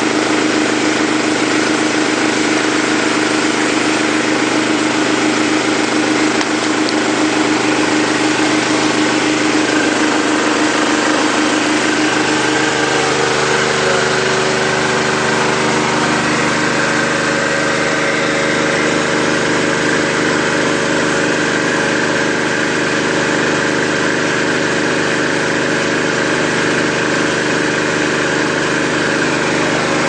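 A motor-driven machine running steadily: a loud, even hum made of several steady tones, whose pitch pattern shifts slightly between about 12 and 16 seconds in.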